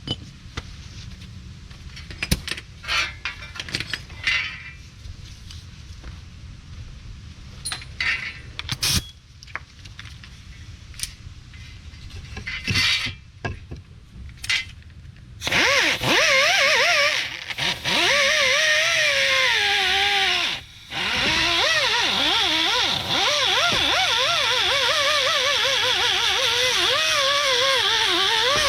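Scattered metallic clinks and knocks of parts and tools being handled. About halfway through, a handheld rotary power tool starts and runs loudly with a wavering pitch as it cleans rust and build-up off the hub mounting. It cuts out for a moment and then runs on.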